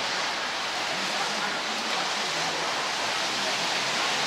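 Steady rain falling, a dense, even hiss.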